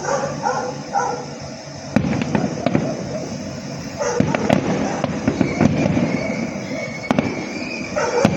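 Fireworks going off in rapid succession: a dense crackle of sharp pops and bangs, thickest from about two seconds in.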